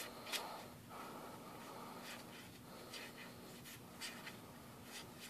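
Trading cards sliding against one another as a handful is fanned and shuffled through by hand: faint rustling with a few soft clicks of card edges.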